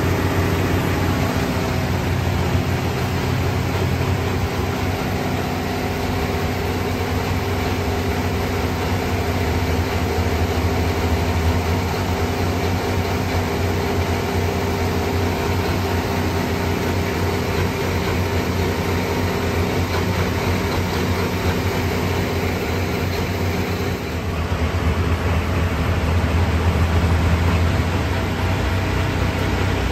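Diesel engine of a Limited Pro Stock pulling tractor idling steadily with a low, even rumble. The sound dips and changes briefly about 24 seconds in, then carries on a little louder.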